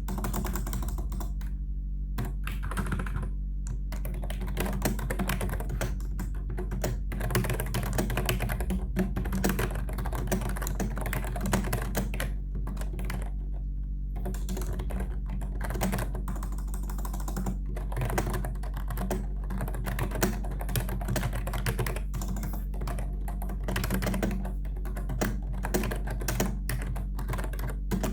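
Continuous fast typing on a Logitech K120 membrane keyboard: rapid key clicks with brief pauses, over a steady low hum.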